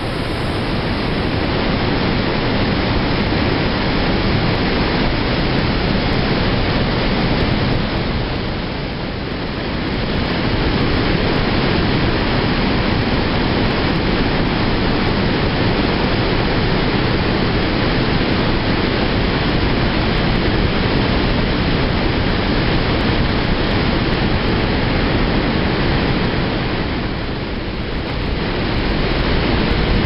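Trümmelbach Falls' torrent pouring through its narrow rock gorge: a loud, steady rush of falling and churning water. It eases briefly twice, about a third of the way in and near the end.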